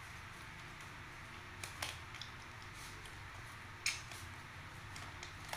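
Faint, steady room hiss with a few short, sharp clicks and smacks from a baby monkey eating jelly out of a small plastic cup. The clicks come about a second and a half in, loudest near four seconds, and again near the end.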